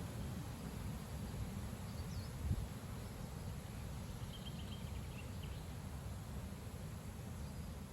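Strong gusty wind buffeting the microphone as a steady low rumble, with one sharper gust about two and a half seconds in.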